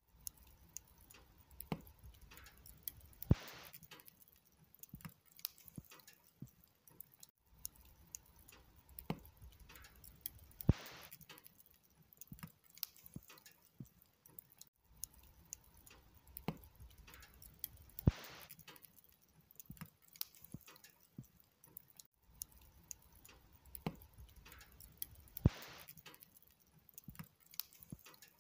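Wood log fire crackling: a soft hiss with many irregular small snaps and pops from the burning logs. A single louder pop comes about every seven seconds.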